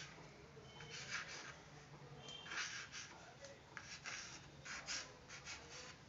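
Chalk scratching on a small chalkboard as a word is written: faint, short, irregular strokes.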